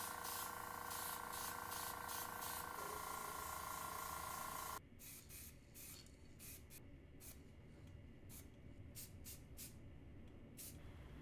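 Airbrush spraying paint: a steady hiss with a humming tone for about the first five seconds, cutting off suddenly. It is followed by about a dozen short spurts of hiss as the trigger is pulsed.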